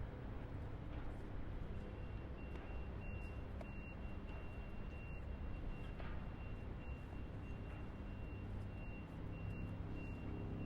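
Distant highway traffic: a steady low rumble of vehicles on the road. From about two seconds in, a faint high-pitched tone keeps breaking on and off above the traffic.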